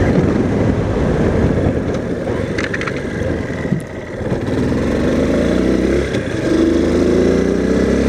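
2008 Honda CRF230L's single-cylinder four-stroke engine running under way, heard from inside the rider's helmet with wind rush. The engine eases off a little before halfway, then pulls away with its pitch rising through the second half.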